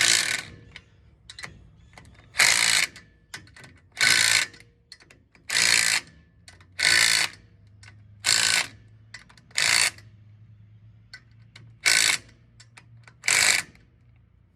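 Socket ratchet with a deep 12 mm socket tightening the nuts of a manual locking hub, in about nine short bursts of rapid clicking with pauses between strokes.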